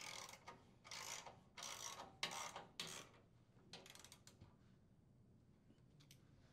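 Socket ratchet clicking faintly in a run of short strokes as a mounting bolt is tightened, five or six strokes in the first three seconds, then a few weaker ones and isolated clicks.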